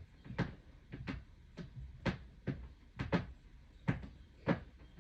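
About ten short, sharp knocks or clicks at uneven intervals, roughly two a second.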